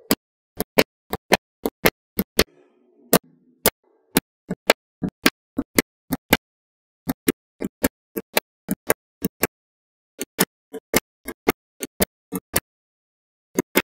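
Magnetic balls snapping together one by one: a long run of sharp clicks, a few a second, broken by short pauses.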